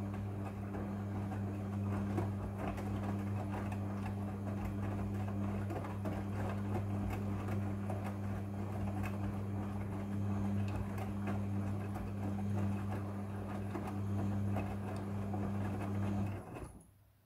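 Front-loading washing machine in its wash stage: the motor runs with a steady hum while the drum turns and tumbles the wet load, then stops suddenly near the end as the drum pauses before reversing.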